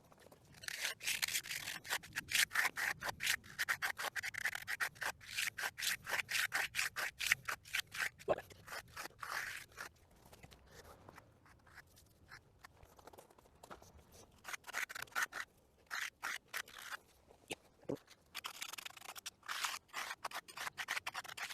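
Hand trowel scraping over freshly poured, still-wet concrete in quick repeated smoothing strokes, stopping for a few seconds midway and then starting again.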